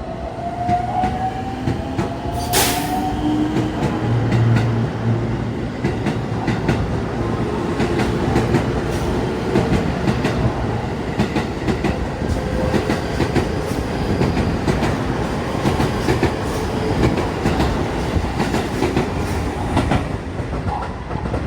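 Electric train running along the platform track, its wheels clacking rapidly over rail joints. Near the start a motor whine rises in pitch, and a sharp click comes a couple of seconds in.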